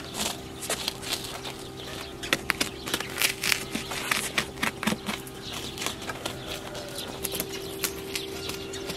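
Knife blade scoring and slicing through the skin and fat of a whole raw sheep carcass, giving irregular sharp clicks and scrapes, several a second, under a faint steady hum.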